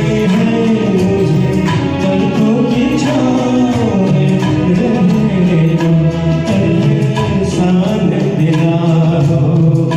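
Music from a Bollywood film-song accompaniment: a gliding melody line over sustained backing, with no break.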